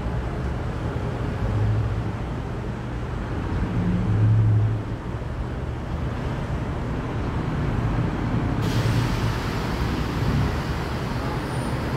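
Steady low rumble of outdoor road traffic, swelling briefly about four seconds in, with a higher hiss coming in suddenly about two-thirds of the way through.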